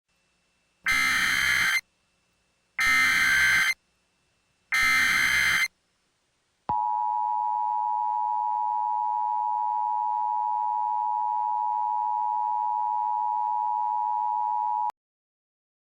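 Emergency Alert System SAME header, three bursts of digital data tones, each about a second long and about two seconds apart. These are followed by the EAS two-tone attention signal, a steady tone held for about eight seconds that cuts off abruptly. Together they mark the start of a broadcast emergency alert.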